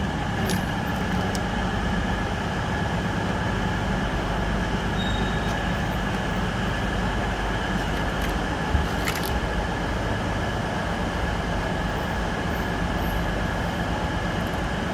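Steady rumble and hum of railway-station machinery and trains, with a few light clicks of escalator step panels being clipped into place, near the start and about nine seconds in.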